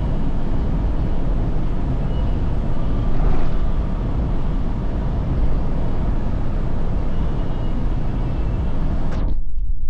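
Steady road and engine noise inside a moving vehicle's cabin, heavy at the low end, with a brief swell about three seconds in. A little after nine seconds the hiss cuts out suddenly, leaving mostly a low rumble.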